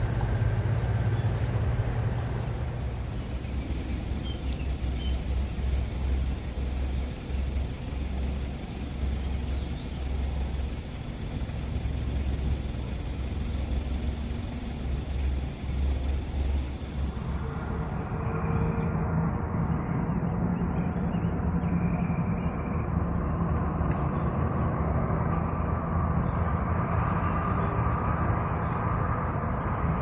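Outdoor ambience: a steady low rumble under a constant hiss. The sound changes character about two-thirds of the way through, and a few faint short high tones follow.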